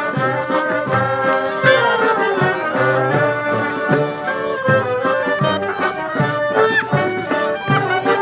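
Klezmer band playing live: a lively traditional tune with several melody instruments over a steady beat of about two strokes a second.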